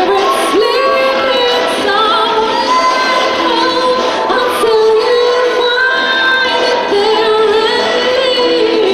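Music with a high voice singing a melody of long held notes that slide between pitches, with little bass underneath.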